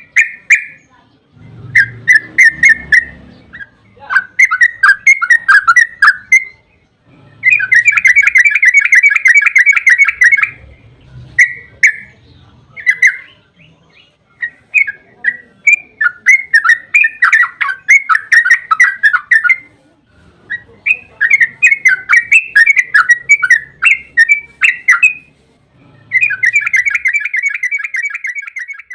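Yellow-vented bulbul (trucukan) singing in loud bursts of quick bubbling chirps. About a third of the way in, again past the middle, and near the end, the bursts run on into long rapid trills lasting several seconds, the long 'ropel' phrases.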